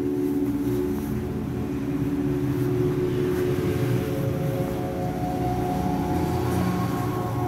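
Slow ambient background music of held, droning chords; the chord changes about five seconds in.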